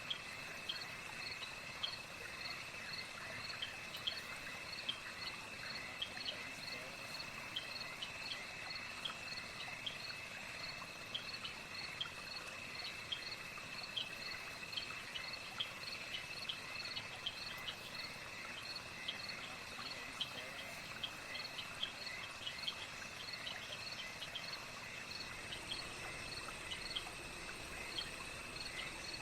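Night insect chorus of crickets: a steady high-pitched trill with many quick chirps repeating over it. A second, still higher trill joins near the end.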